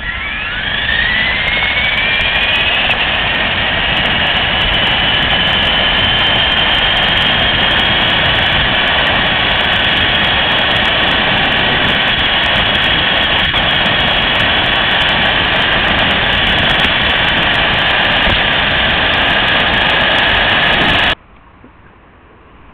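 LaTrax RC car's electric motor and drivetrain whining as the car accelerates, the pitch rising over the first few seconds and then holding steady and high at speed, over constant rushing road noise. It is picked up by the car's onboard camera. The sound cuts off suddenly near the end, leaving a faint background.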